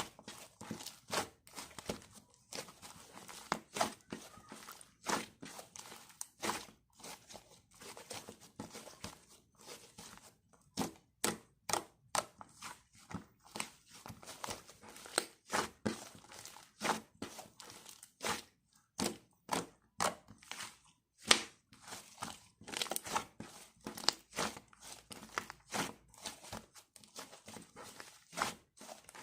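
Irregular short crinkling and tapping handling noises, about one or two a second, with no speech.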